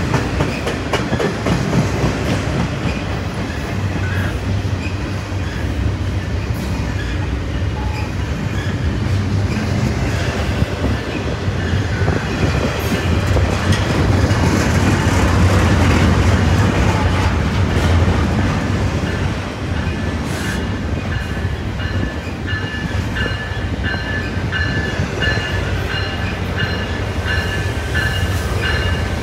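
Double-stack intermodal container freight train passing close by: a steady, loud noise of steel wheels on rail, swelling a little about halfway through. Near the end a high tone starts repeating, about two pulses a second.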